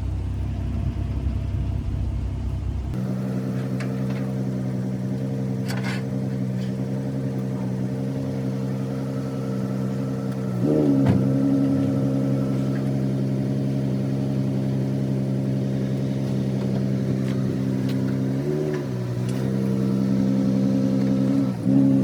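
A motor vehicle engine idling steadily, with brief revs about halfway through, again later, and just before the end. A low rumble comes before the idle starts.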